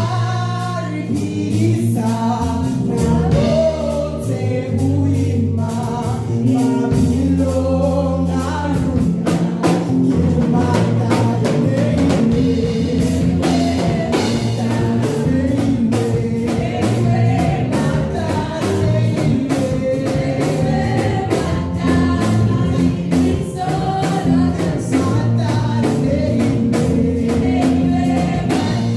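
Live gospel worship song: several women singing together into microphones, backed by a band with a drum kit keeping a steady beat.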